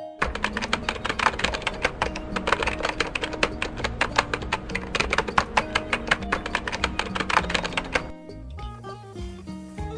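Background music: a fast, busy section with rapid percussive beats over pitched notes, changing about eight seconds in to a softer passage of held notes.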